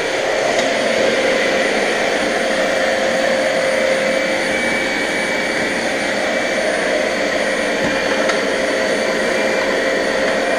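Vacuum cleaner running steadily, a constant whine over its rushing air noise, while it cleans carpet in a corner.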